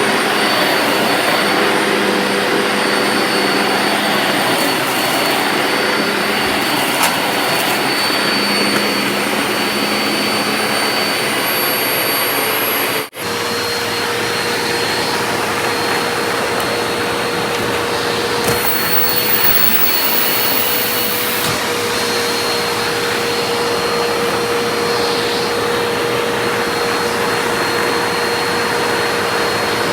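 Vacuum cleaner running steadily with a whooshing roar and a steady whine, with a couple of light ticks. The sound drops out for an instant about halfway through, and the whine resumes at a slightly different pitch.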